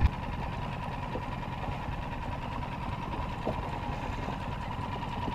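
Boat motor running steadily: a low rumble with a thin, steady higher hum above it.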